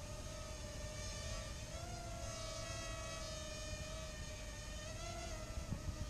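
Parrot Mambo mini quadcopter's propellers whining steadily in flight, the pitch wavering and briefly rising about two seconds in as the motors change speed. A few faint clicks near the end.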